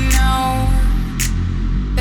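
Bass-boosted electro house music: a heavy, sustained low bass under a gliding melodic line, with a cymbal-like hit about a second in.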